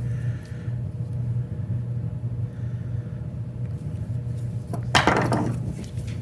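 Small chainsaw parts being handled and fitted by hand over a steady low hum, with one brief, louder scrape or rustle about five seconds in.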